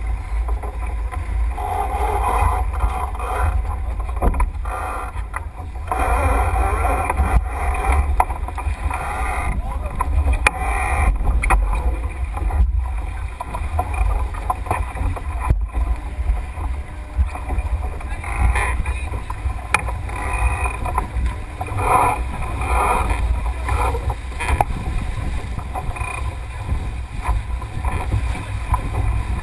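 Wind buffeting the microphone with water rushing past the hull of a Melges 24 sailboat under way, a steady rumbling noise, with crew voices now and then.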